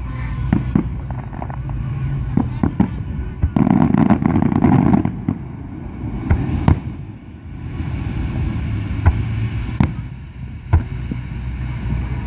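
Aerial fireworks shells bursting: a run of sharp bangs at uneven intervals, with a dense stretch of crackling about three and a half seconds in lasting over a second.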